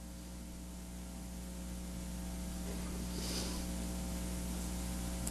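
Steady electrical mains hum from the sound system, growing slowly louder, with a faint brief hiss about three seconds in.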